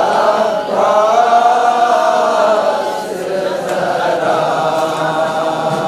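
Men's voices chanting a noha, a Shia Muharram mourning lament, together in long, drawn-out held lines.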